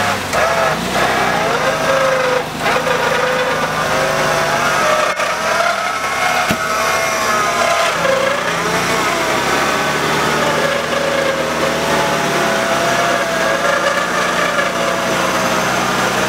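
UAZ off-roader's engine running hard under load, its pitch rising and falling unsteadily as the vehicle sits bogged in deep mud with its wheels spinning and churning the mud.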